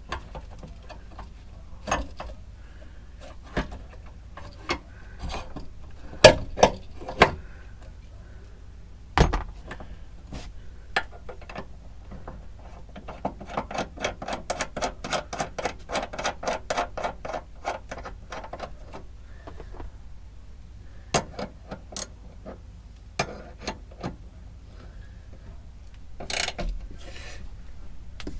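Hand-tool work on a truck interior: scattered sharp clicks and knocks, and about halfway through a few seconds of rapid ratcheting clicks, about five a second.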